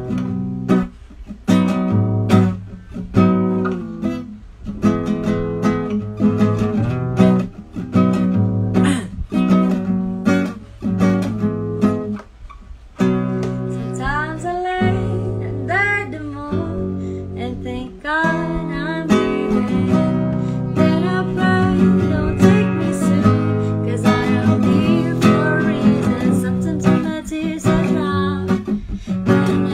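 Acoustic guitar strummed, chords struck in a steady rhythm.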